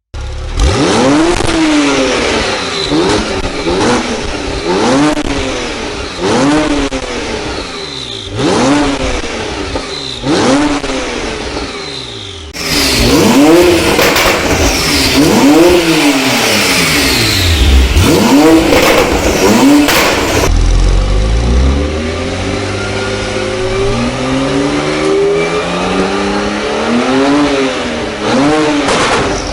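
Porsche 991.1 Turbo's twin-turbo flat-six, breathing through an Akrapovic slip-on exhaust with catless link pipes, revved in a string of quick blips that each climb and fall back. Past the middle there is one longer, steady climb in revs, then more blips near the end.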